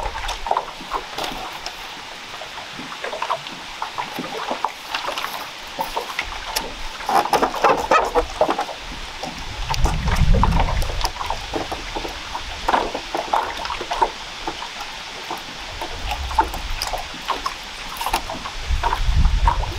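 Bamboo poles of a floating raft knocking and rubbing together, with the rustle of bamboo lashing strips being pulled and tied around a crosspiece: scattered clicks and knocks, busiest about seven to eight seconds in.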